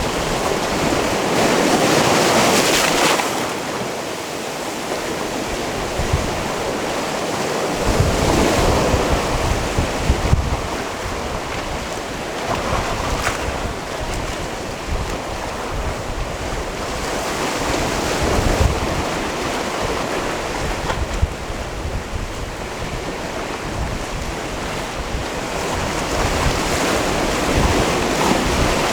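Sea waves washing onto a rocky shore, swelling and easing every few seconds with louder surges at irregular intervals, with wind buffeting the microphone.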